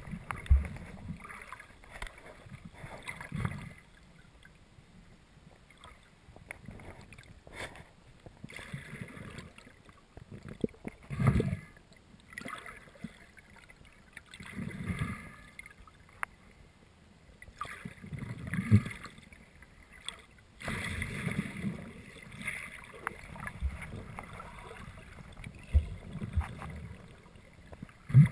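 Water sloshing and splashing in irregular bursts every few seconds, with scattered knocks, heard muffled through a camera's underwater housing as it is moved through shallow water.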